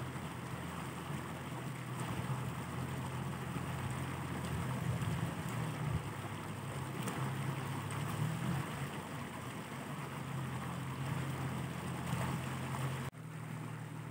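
Steady low motor hum with wind noise on the microphone; the hiss drops suddenly near the end while the hum carries on.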